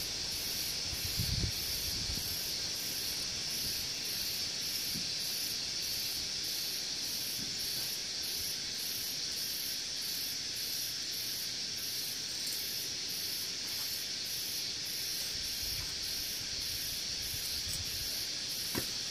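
Steady high-pitched hiss with a faint, even pulsing above it, about three pulses every two seconds. A few soft low rustles in the first two seconds and a small click near the end.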